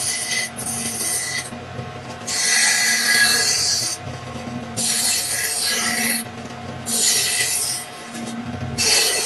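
Long abrasive strokes across wood as a carving is hand-shaped. There are about six passes, each lasting about a second, with short pauses between.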